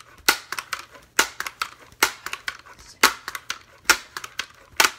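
Daisy 880 Powerline air rifle being pumped: the forearm pump lever is worked in six strokes about a second apart, each a sharp clack with smaller clicks between, charging the gun with air for a shot.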